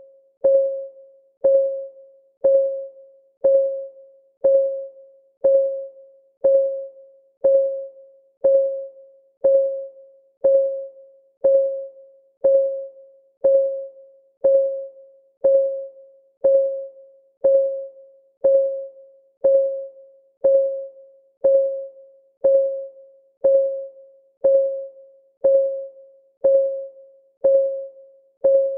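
Countdown timer's ticking sound: one tick every second, each a short single note that starts sharply and dies away quickly, keeping a perfectly even beat.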